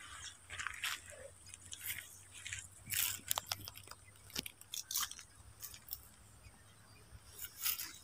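Faint, irregular crackling rustles of dry long-bean vines and leaves being brushed, several small crunches a second.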